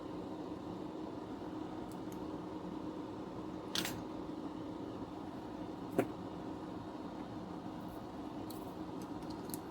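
Steady hum with a faint held tone, and two short clicks, one a little under four seconds in and one about six seconds in, from small tool handling during hand soldering of wires onto a foot-pedal circuit board.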